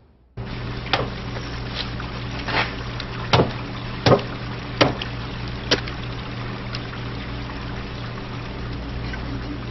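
Fish-handling ambience: a steady low mechanical hum with running water, cut by a series of sharp wet knocks about one a second, from about one to six seconds in, the loudest near the middle.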